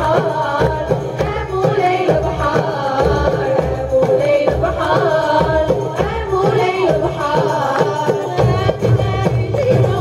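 Women's ensemble singing to a steady beat on clay goblet hand drums and a frame drum, with a violin played upright on the knee.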